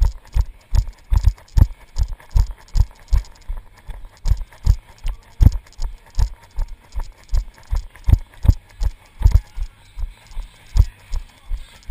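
Running footsteps on a rocky dirt trail, heard as a steady train of dull thumps, about two and a half a second, through a body-worn action camera that jolts with each stride.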